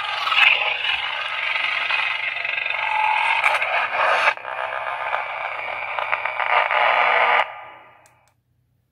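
Lightsaber sound effects from a Golden Harvest v3 soundboard played through a tiny 20 mm speaker, thin and hissy with little bass. The sound shifts abruptly about four seconds in and dies away over about a second near the end.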